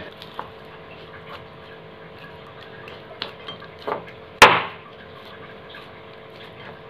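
Hand kneading stiff whole-wheat dough in a glass bowl: soft pressing and a few light knocks against the glass, with one sharp knock on the bowl about four and a half seconds in.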